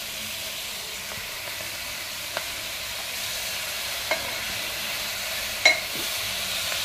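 Chopped cabbage and tomato sizzling steadily in hot ghee and oil in a pressure cooker. A steel ladle stirs them and knocks against the pot three times. The last knock is the loudest and rings briefly.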